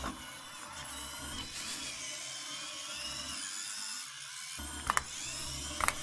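Small electric gear motors of a Robo Wunderkind toy robot whirring as its wheels spin, the whine wavering in pitch. Two short knocks about a second apart near the end.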